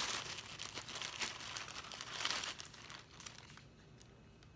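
Clear plastic bag crinkling as hands rummage through it and pull out a packet. The rustling fades after about two and a half seconds, leaving a few faint rustles.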